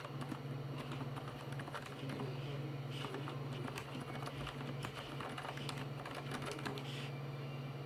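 Typing on a Filco Majestouch2 mechanical keyboard with Cherry MX Silent Red linear switches and dye-sub keycaps: a quick, irregular run of soft, dampened keystrokes, over a steady low hum.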